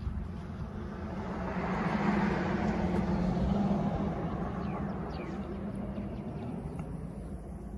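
A vehicle passing by: its road and engine noise swells over a couple of seconds and then fades away.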